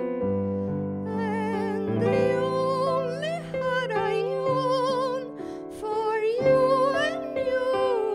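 A woman singing a slow ballad with strong vibrato, in phrases with short breaths between them, accompanied by piano chords.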